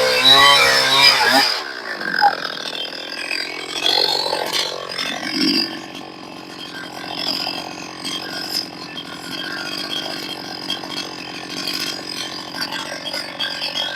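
Two-stroke chainsaw, a freshly tuned 372 with newly sharpened semi-chisel chain, running at full throttle in a cut for about a second and a half. It then drops suddenly to a steady idle for the rest.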